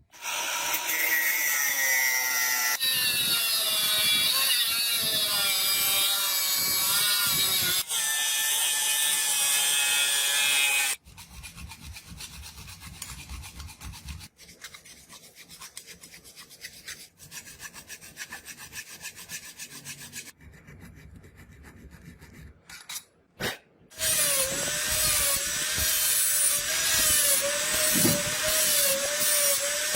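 Steel being cut and abraded while a butterfly knife is shaped, in several short clips: loud scraping with wavering squealing tones, then a quieter rough stretch, and near the end even strokes about one and a half a second.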